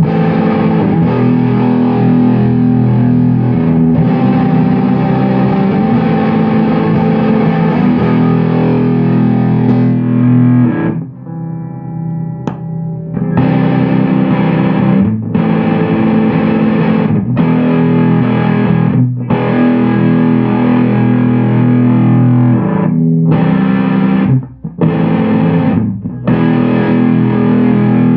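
Electric guitar played through a Ratten distortion pedal: heavily distorted, sustained chords, a quieter, thinner stretch about eleven seconds in, then chord stabs with short breaks between them.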